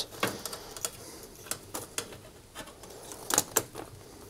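Scattered light clicks and taps of spade connectors and wires being moved from an old oven thermostat-and-switch unit onto a new one, with two sharper clicks about three and a half seconds in.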